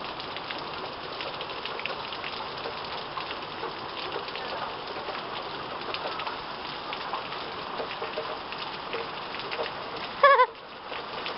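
Heavy rain pouring down: a steady hiss with the patter of countless drops. About ten seconds in, a brief loud high-pitched cry cuts in.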